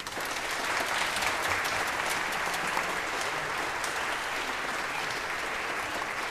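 Audience applauding: clapping breaks out and swells within the first second, then carries on as steady, dense applause.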